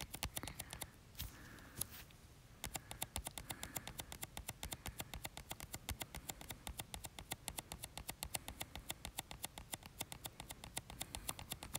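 Fingertips tapping rapidly on a phone's touchscreen: a faint, fast, steady run of light clicks, several a second, with only a few scattered taps before it gets going about two and a half seconds in.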